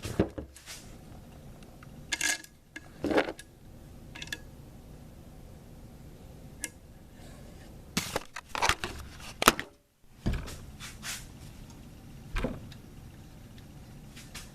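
Irregular metallic clicks, taps and knocks of an Allen wrench and handguard parts being handled on an AR-15 upper, a few short sounds at a time with gaps between.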